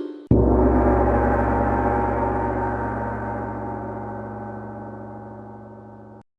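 A gong struck once, ringing with many overtones and slowly fading, then cut off abruptly about six seconds in.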